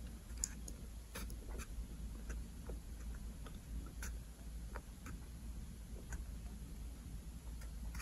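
Faint, irregular small clicks and ticks as the battery's wire-to-board connector is pressed back into its socket on the monitor's circuit board, over a low steady hum.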